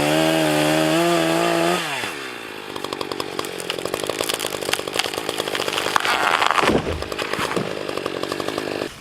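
Two-stroke chainsaw held at full throttle, then the throttle is released about two seconds in and the engine pitch drops quickly to a rough, uneven idle.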